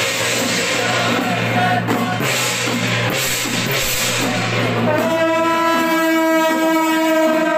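Gongs, cymbals and drum clashing together under a chanted Taoist invocation. About five seconds in, a long steady horn note starts and is held.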